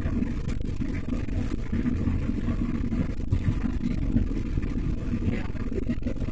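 Road and engine noise of a moving car, heard from inside the cabin: a steady low rumble.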